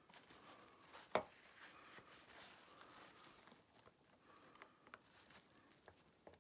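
Near silence with a few faint clicks and scrapes of a screwdriver working at the seized governor plug in a Tillotson HS147D carburetor body, and one sharp click a little over a second in.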